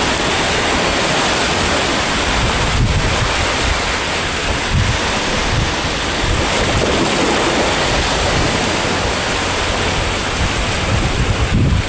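Sea waves washing onto the shore in a steady surf, with wind buffeting the microphone in low rumbles.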